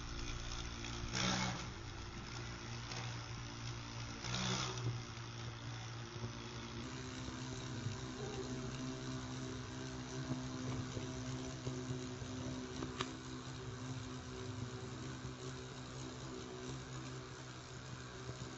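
Large black carpenter bee buzzing steadily as it flies against a window pane, its wingbeat a low, even hum. Two short, louder scratchy noises come about one and four and a half seconds in.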